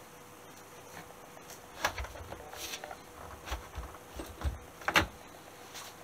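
Hands pressing a square foam sponge onto the plastic heater box's vent outlet, making a series of light knocks and taps on the plastic housing, the loudest near the end.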